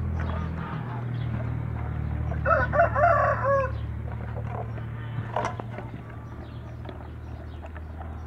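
A rooster crowing once, about two and a half seconds in, one wavering call lasting just over a second, over a steady low hum.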